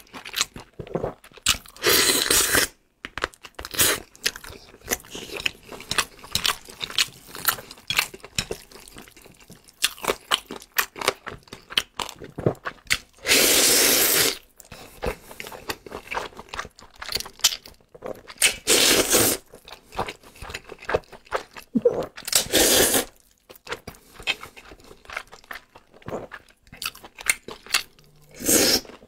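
Close-miked eating: wet chewing and crunchy bites, with several long, loud slurps of zhajiangmian noodles, the longest about halfway through.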